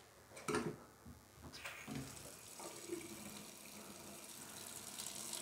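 Kitchen mixer tap running into a stainless-steel sink to fill the drain's water trap. Two brief knocks come about half a second and a second and a half in, then the water runs in a steady stream that slowly grows louder.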